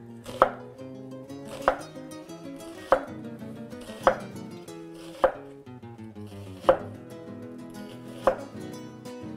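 Chef's knife slicing a red onion on a wooden cutting board: seven sharp knocks, one every second or so, as the blade goes through and strikes the board.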